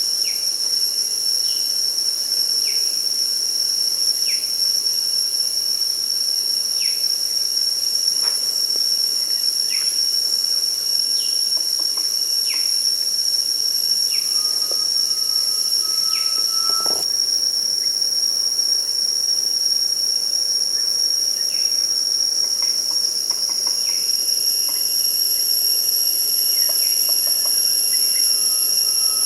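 Steady high-pitched drone of forest insects, crickets or cicadas, with short falling bird calls repeated every second or two.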